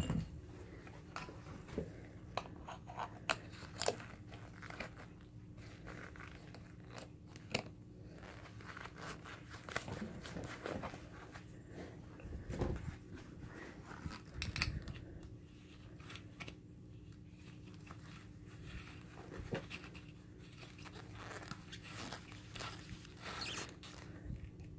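Gloved hands handling a Soviet gas mask's corrugated rubber hose and metal-threaded filter canister: scattered clicks, rustling and creaking, with a sharp knock right at the start.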